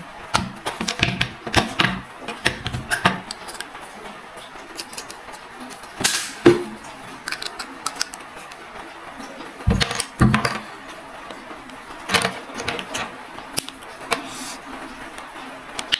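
Irregular plastic clicking, knocking and scraping as the straps are pulled free of a plastic action-camera helmet mount. The loudest knocks come about six seconds in and again around ten and twelve seconds.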